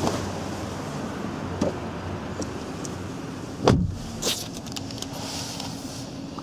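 Skoda Octavia II's front passenger door shut from inside: one heavy, deep thud about three and a half seconds in, followed by a lighter knock, with a few small handling clicks before it and a steady low hum throughout.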